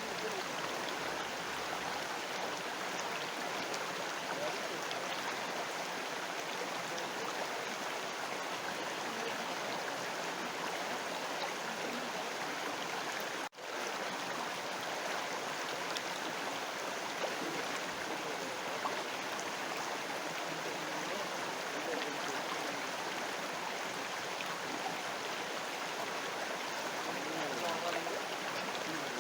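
River water flowing, a steady, even rush. It cuts out for a split second about halfway through.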